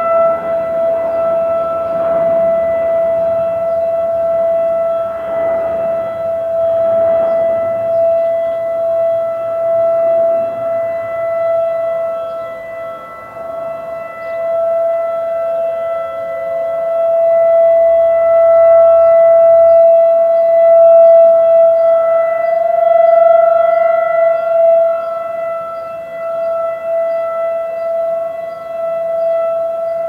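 Outdoor tornado warning siren sounding a steady, unwavering tone during a monthly test of the warning system. Its loudness slowly swells and fades, loudest in the second half.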